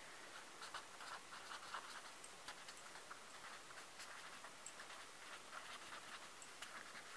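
Felt-tip pen scratching on paper as words are written: faint, short, irregular strokes.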